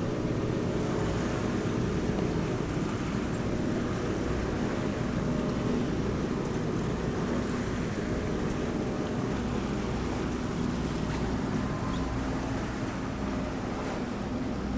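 A catamaran's engine running steadily as the boat motors along, a constant low hum with wind and water noise over it.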